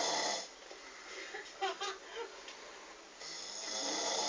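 A person snoring: one snore ends about half a second in, then after a quieter gap the next snore begins about three seconds in.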